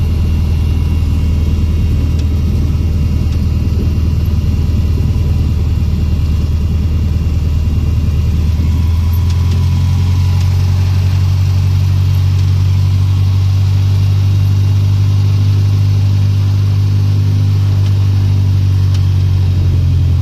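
Cessna 150's four-cylinder Continental O-200 engine and propeller running at low taxi power, heard from inside the cockpit. The engine note rises a little about nine seconds in and then holds steady.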